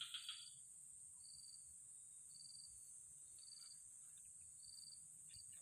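Faint chorus of swamp insects: a steady high-pitched hiss, with a short trill repeating about once a second. A quick run of chirps sounds right at the start.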